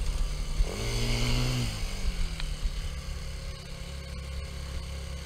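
Big Boy Roamer 180cc quad bike engine running at low revs. It revs up just over half a second in, holds for about a second, then drops back to a steady low run.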